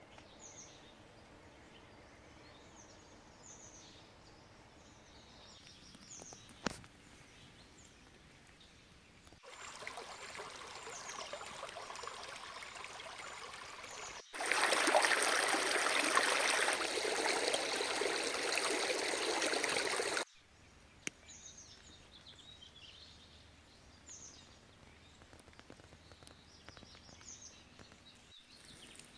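Small birds calling and singing with short high chirps over quiet forest ambience. In the middle a steady rushing noise takes over, growing louder partway through and then stopping abruptly, before the birdsong returns.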